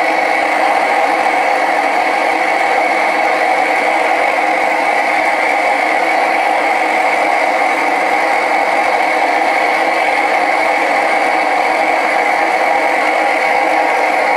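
Gas burner firing a small homemade crucible furnace, a steady, even rush of flame at turned-down gas flow.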